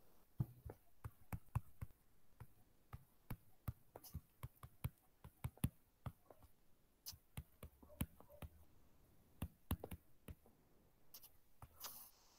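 Faint, irregular clicks and taps of a stylus writing on a tablet screen, a few a second, with a short rustle near the end.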